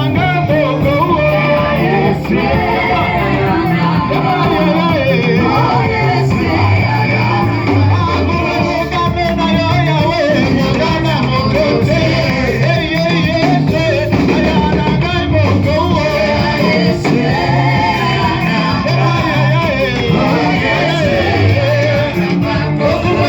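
Live church praise music: voices singing over a band with bass and guitar, at a steady loud level.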